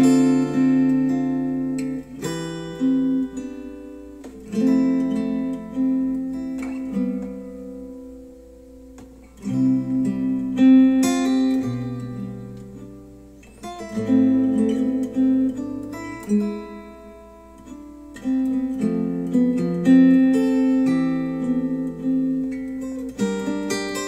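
Acoustic guitar music played back through Wharfedale Denton 80th bookshelf speakers driven by a NAD C 368 integrated amplifier. Plucked and strummed chords ring out and fade, with brief quieter lulls between phrases.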